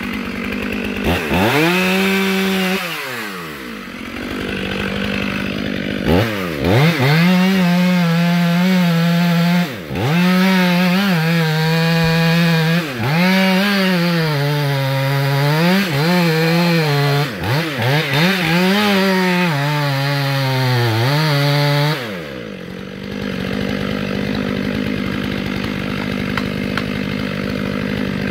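Stihl MS 500i two-stroke chainsaw revving and cutting into a thick box elder trunk. The engine pitch sags and recovers again and again as the chain bites into the wood. It drops to a steady idle for the last several seconds and revs again right at the end.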